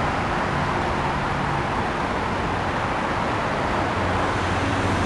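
Steady background traffic noise: an even rushing sound with a faint low hum underneath, unchanging throughout.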